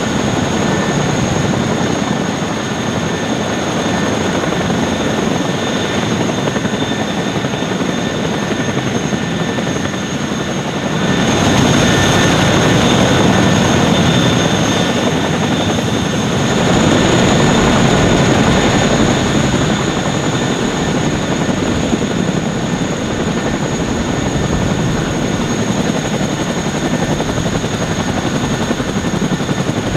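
Boeing CH-47F Chinook tandem-rotor helicopter with its twin turboshaft engines running: rotor noise under a steady high whine, swelling louder twice, about 11 and 17 seconds in.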